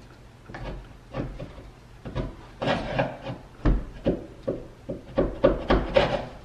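A sharp chisel scraping old paint off a wooden door panel in many short strokes, louder and quicker from about two and a half seconds in.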